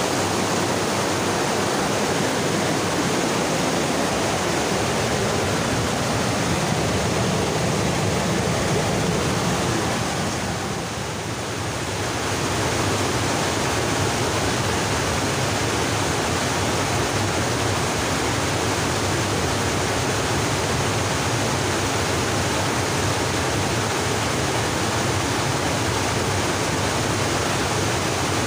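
Fast-flowing river rushing over rocks: a steady, loud rush of water, dipping briefly about eleven seconds in.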